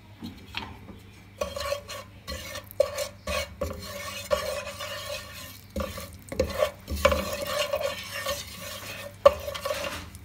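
Wooden spatula stirring ground cumin into hot oil in a dark-coated pan, with repeated irregular scraping strokes against the pan bottom over a light sizzle of the oil.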